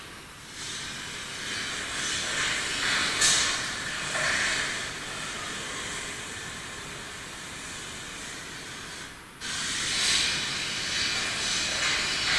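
Hiss from a digital voice recorder's playback, turned up to listen for voices, with a few swells in the noise. It cuts out suddenly about nine seconds in, then resumes louder.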